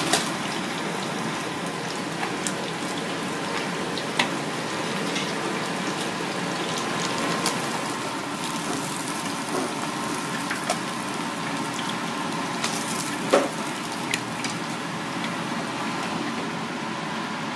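Oil in a deep fryer sizzling steadily, with a few light clicks of metal utensils against the wire rack and basket, the sharpest about two-thirds of the way through.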